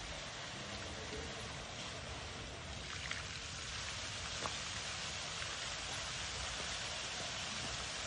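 Decorative garden fountain running, its jets falling back into the basin in a steady splash of water.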